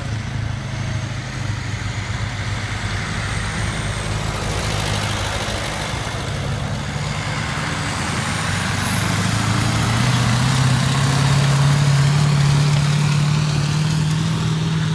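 Diesel tractor engine working hard under heavy load as it drags a weight-transfer pulling sled. The note climbs steadily in pitch and grows louder over the second half as the tractor comes past.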